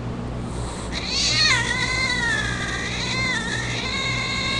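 Cat yowling, played back from a cat video through laptop speakers: one long, wavering, drawn-out cry that starts about a second in, swoops up and down in pitch and keeps going with only brief dips.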